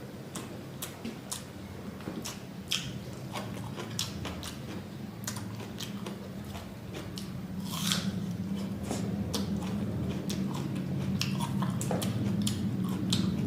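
A person biting and chewing food close to the microphone, with many short wet clicks and crunches, over a steady low hum that grows louder in the second half.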